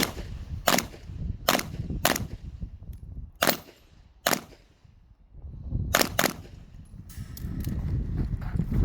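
Handgun shots fired during an IPSC stage: eight sharp reports at uneven spacing, including a quick pair about six seconds in.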